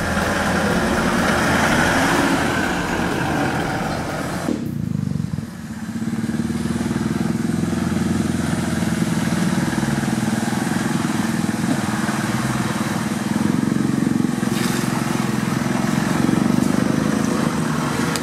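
Toyota Land Cruiser 4x4 engine running as the vehicle drives off-road. An abrupt cut about four and a half seconds in changes the sound to a steadier, lower engine note as it crawls along a rutted forest trail.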